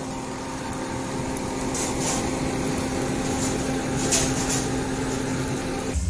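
Steady motor hum with a rushing hiss, like a small electric fan blowing on a charcoal grill fire, with a few faint crackles now and then.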